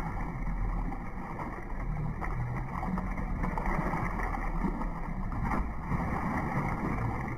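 Boat motor running steadily, a constant low drone with a hum underneath.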